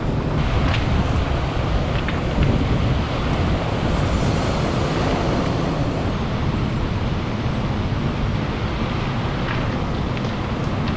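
Ocean surf breaking and washing over a pebble beach, mixed with wind buffeting the microphone: a steady, loud rush, heaviest in the low end, with a few faint clicks.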